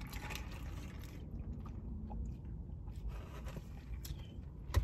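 Faint eating sounds: chewing and a sip through a straw from a plastic cup, over a low steady rumble.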